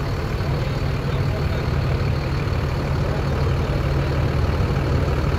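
Diesel engine of a Freightliner M2 heavy-duty truck running at low speed while the RV rig is backed into its site, a steady low rumble.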